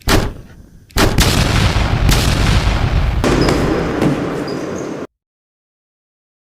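Added battle sound effects: a single loud blast at the start, then about four seconds of dense, continuous gunfire and blasts that cut off suddenly into silence.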